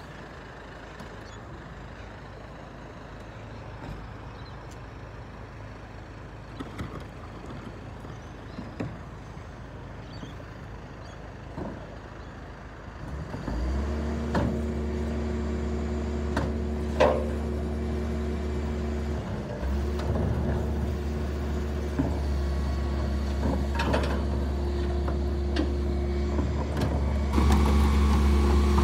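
Isuzu rear-loader garbage truck idling low with scattered clunks of wheelie bins, then about halfway through the engine picks up to a loud steady drone as the bin lifter and compactor hydraulics are run from the rear control panel. The drone dips briefly and steps louder again near the end, with sharp knocks of bins against the lifter.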